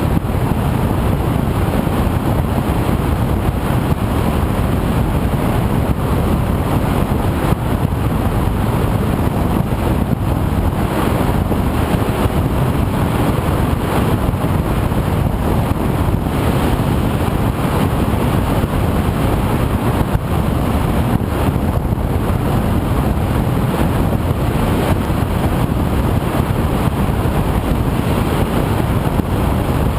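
Steady rush of wind and motor noise picked up by an FPV drone's onboard camera in flight, even and unbroken throughout.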